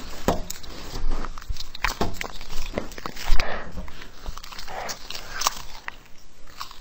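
Two cats biting and chewing on a strip of red food treat, with irregular clicks and smacking bites.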